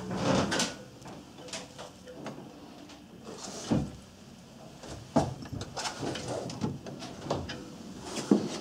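Irregular knocks and thumps with rustling from someone moving about inside a small sailboat's cabin and handling a handheld camera, the loudest a few seconds in and near the end.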